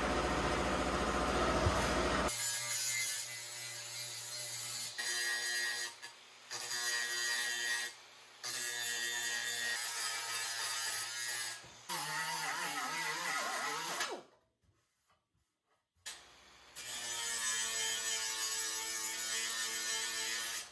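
Electric angle grinder running in a series of short stretches, its motor whine steady and cut off abruptly between them, with a brief silence about two-thirds of the way through.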